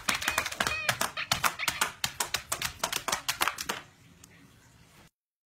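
A dog's claws clicking fast on a tablet and a hard floor as it paws at the screen: a dense run of sharp taps that stops about four seconds in.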